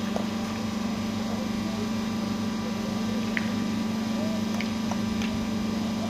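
Steady low machine hum, with faint voices and a few light clicks.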